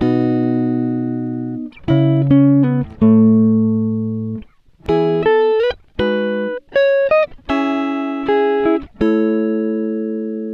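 Background music: a plucked guitar playing slow phrases of notes and chords, each struck and left to ring out and fade.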